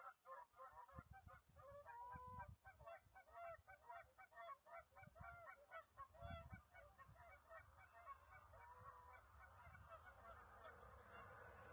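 A flock of geese honking in the distance: many short, overlapping calls several times a second, thinning out toward the end. Faint low rumbles of wind on the microphone come and go.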